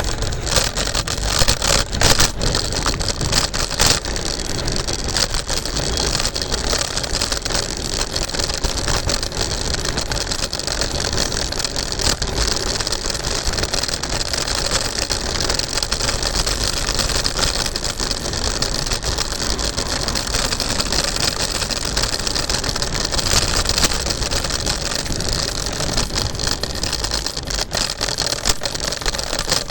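Scooter ridden at speed: a steady rush of wind and road noise, with a few sharp knocks in the first seconds.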